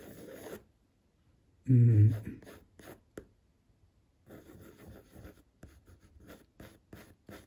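Colored pencil scratching over watercolor paper in short sketching strokes, mostly in the second half. A man's voice makes one short, low utterance about two seconds in, the loudest sound.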